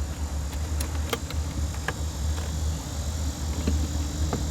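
A steady low hum, with a scattering of small sharp clicks and taps from parts being handled during the wiring job.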